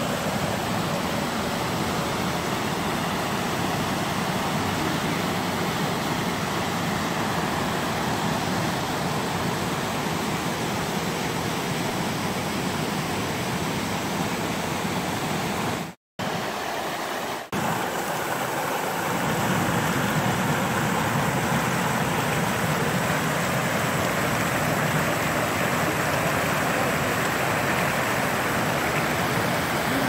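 Selkefall, a small waterfall cascading over stepped rock ledges into a pool: a steady rush of falling water. The sound drops out for an instant about halfway through, then carries on slightly louder.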